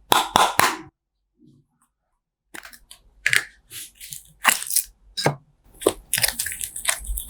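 Slime being squeezed and stretched by hand, giving sharp crackling and popping clicks in irregular bursts, with a short pause about a second in.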